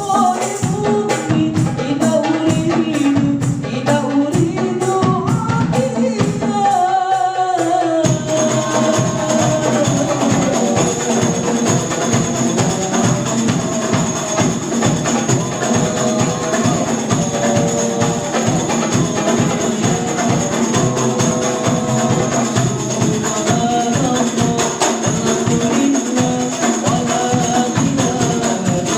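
Sholawat singing over a fast, steady beat of hand drums and jingling tambourine. About eight seconds in, the percussion becomes fuller and denser under the sung melody.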